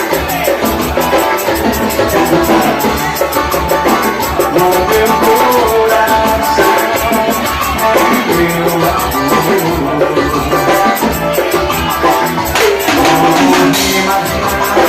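Music with drums and percussion keeping a fast, steady beat, with pitched melody lines over it.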